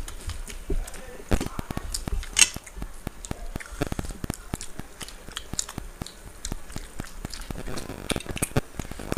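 Close-up eating sounds of two people eating rice and masala chicken fry by hand: a steady run of quick chewing and lip-smacking clicks, with fingers mixing rice against steel plates. The sharpest smacks come about one and a half and two and a half seconds in.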